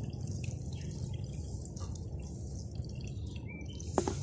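Water dripping and sloshing in a stainless steel bowl as unhusked paddy rice is washed by hand, with faint scattered ticks and one sharp knock near the end.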